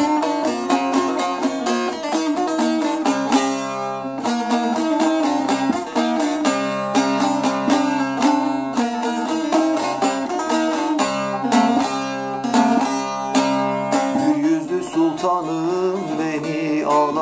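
Bağlama (Turkish long-necked saz) played with a plectrum: a fast picked melody in quick strokes over a steady ringing low drone string. This is the instrumental introduction to a Turkish folk song, and the playing thins out for the last few seconds.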